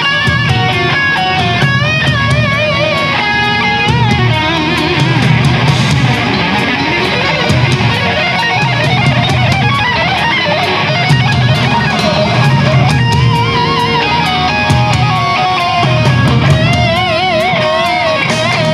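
Distorted electric guitar playing a heavy metal shred lead: rapid runs of notes and held notes with wide vibrato, over a heavy, pulsing low rhythm.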